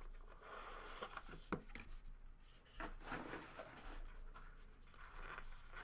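Soft rustling and sliding of trading cards and their packaging being handled, with a few faint clicks.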